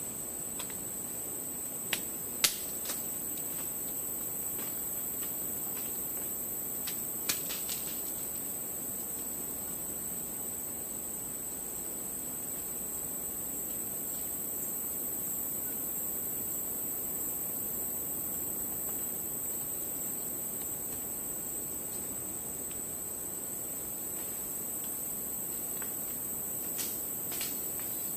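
A steady, high-pitched chorus of insects droning without a break. A few sharp clicks or snaps cut through it: a cluster about two seconds in, another around seven seconds, and a couple near the end.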